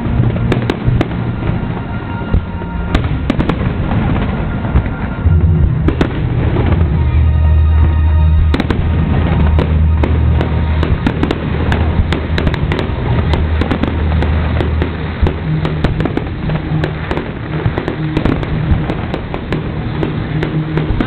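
Aerial fireworks bursting in a continuous barrage of bangs and crackles, with deep booms heaviest through the middle stretch.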